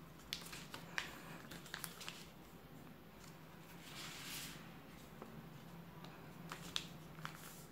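Sheet of paper crinkling and crackling in short sharp snaps as fingers fold it and press creases into a paper airplane, with a soft rustle of paper sliding about four seconds in.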